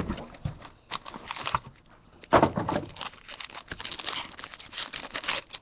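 A trading-card box and its wrapping being torn open and handled: crinkling, tearing and rustling in irregular bursts, the loudest about two and a half seconds in.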